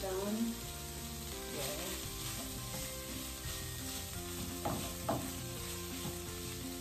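Plant-based ground meat and diced vegetables sizzling in a nonstick frying pan over a gas flame while a spoon stirs and scrapes through them, with two sharper scrapes against the pan about five seconds in.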